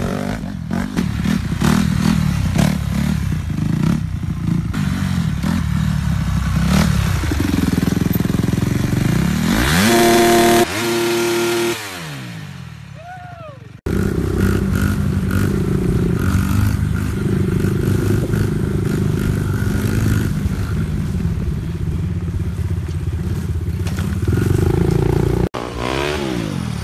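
Small dirt bike and mini bike engines running and revving through a run of short clips, each cut off abruptly by the next. About ten seconds in, one engine revs up to a high steady pitch, then falls away.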